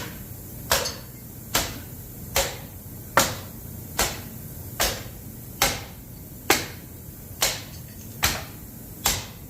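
Hammer blows beating a seized distributor out of a Ford 429 big-block engine. There are about eleven sharp, evenly paced strikes, a little more than one a second.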